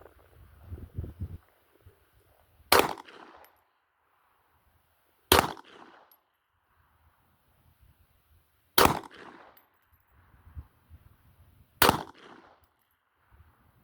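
Four single gunshots from a firearm, slow deliberate fire about three seconds apart, each followed by a short echo tail.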